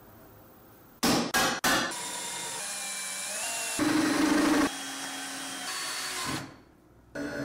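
Cordless drill-driver working on an aluminium angle: a few short trigger bursts, then several seconds of steady running with a louder, heavier-loaded stretch in the middle, before it stops.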